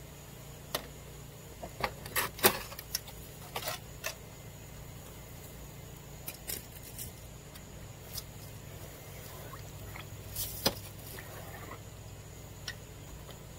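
Scattered light clicks, taps and scrapes of hands working at a metal gutter and its perforated metal guard. A flurry of sharper clicks comes a couple of seconds in, and one more sharp click about ten seconds in.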